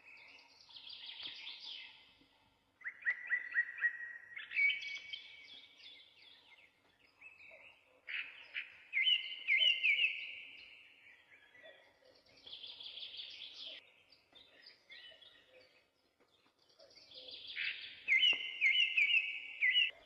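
Birdsong: a string of varied phrases of quick repeated chirps and short trills, one after another with brief pauses between them.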